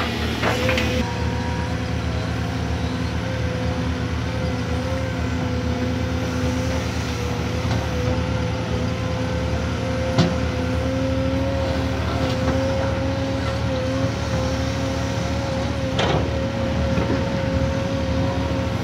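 Caterpillar 340D2 L hydraulic excavator's diesel engine running steadily under working load, with a steady, slightly wavering whine over it. A few sharp knocks stand out: just after the start, about ten seconds in and about sixteen seconds in.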